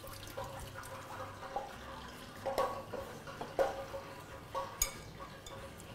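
A spoon tapping and clinking against a glass mixing bowl as a salad is tossed: several light taps about a second apart.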